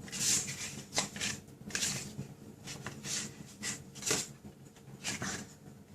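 Paper and card being handled on a craft table: a series of short rustles and swishes, with a couple of light taps.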